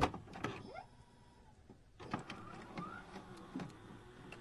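Faint electronic loading-screen sound effect: scattered soft clicks with a short held tone about a second in and a brief rising whirr near the end.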